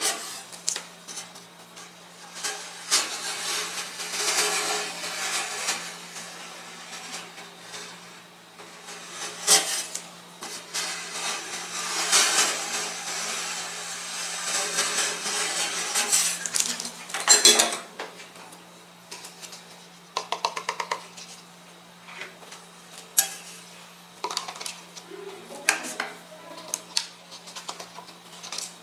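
Metal spatulas scraping across and tapping on a steel cold plate while rolled ice cream is made. There are long stretches of scraping in the first half, then sharper scattered taps and clicks.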